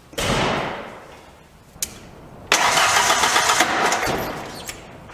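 1991 Ford Ranger's 2.3L four-cylinder being cranked over by the starter in two goes, a short one near the start and a longer, louder one from about two and a half seconds in, without catching: a no-start that the owner traces to the ignition, suspecting the DIS module.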